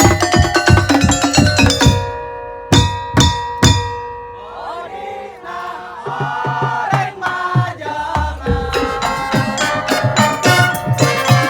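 Madurese tong-tong percussion ensemble music. A fast, even percussion pattern breaks off about two seconds in, leaving held tones and three loud strikes. A wavering melody line follows, then the dense percussion comes back in near the end.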